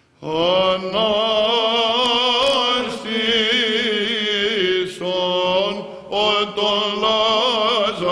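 Byzantine chant sung by a small group of male chanters: a wavering, melismatic melody over a steady held drone (the ison). It begins about a quarter second in, after a short silence, with brief breaks between phrases.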